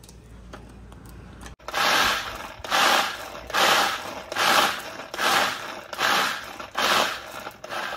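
Pull-cord manual food chopper crushing Oreo biscuits: starting about one and a half seconds in, the cord is pulled about eight times in quick succession, each pull a short burst of spinning blades rattling and grinding through the biscuits.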